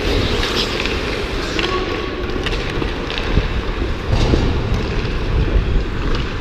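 Ice skate blades scraping and gliding over rink ice as the camera wearer skates, with wind rumbling on the body-worn camera's microphone. A few short sharp clacks sound through it.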